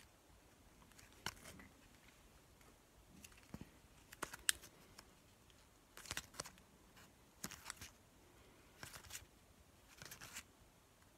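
Baseball cards being flipped through by hand, each card slid off the stack with a short, scratchy flick, repeated about every second to second and a half.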